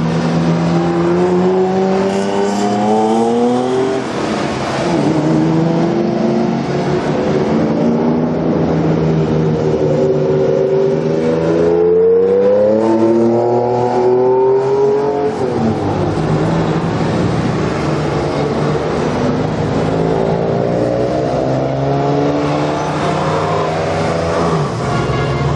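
Porsche cars driving off one after another and accelerating past, each engine note climbing in pitch as the car pulls away. The longest and loudest rise comes in the middle.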